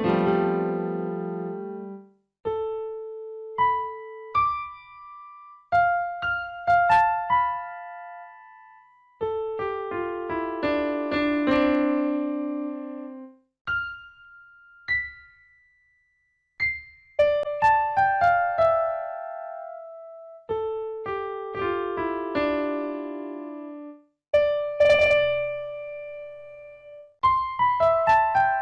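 Background piano music: struck notes and chords that die away, played in phrases with short pauses between them.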